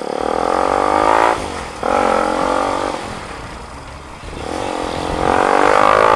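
Motorcycle exhaust through a new muffler while riding: the engine note climbs in pitch, drops out briefly about a second and a half in, picks up again and eases off through the middle, then climbs again near the end.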